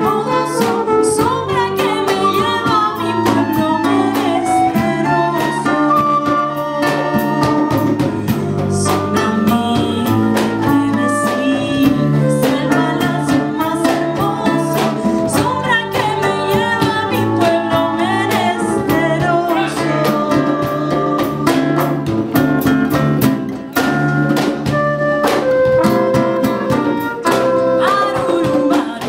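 Live band playing a song, with a woman singing over trumpet, guitar, bass and drum kit.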